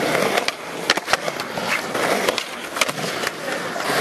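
Skateboard wheels rolling on concrete: a steady rumbling roll, broken by several sharp clacks of the board hitting the concrete.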